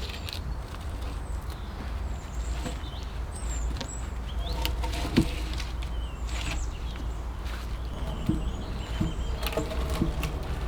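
Small birds chirping now and then over a steady low rumble, with a few scattered knocks or taps, the sharpest about five seconds in.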